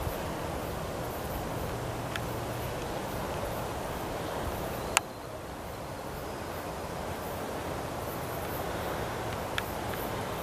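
Steady outdoor background noise with wind on the microphone, broken by one sharp crack about halfway through and two faint ticks, one before it and one near the end.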